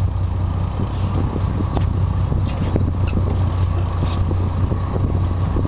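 Boat engine running steadily, a continuous low drone, with scattered faint clicks over it.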